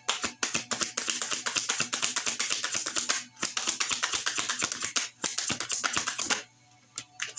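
A deck of tarot cards being shuffled by hand: fast, crisp clicking runs of cards, broken by short pauses twice and a longer pause near the end.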